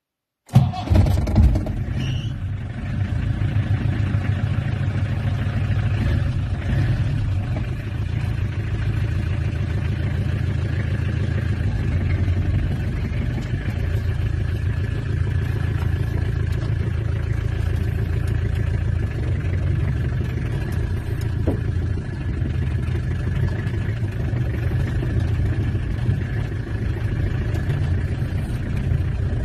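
Peugeot XD3 2.5-litre four-cylinder diesel engine heard from inside the cab of a Peugeot 404 pickup. It comes in abruptly about half a second in, is loudest for the first second or so, then runs steadily while the pickup drives.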